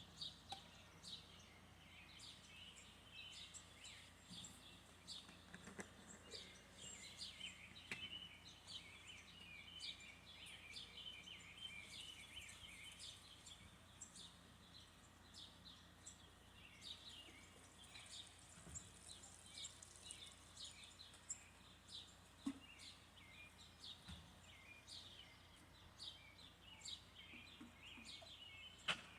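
Faint birds chirping, many short repeated chirps, over a low steady background hum.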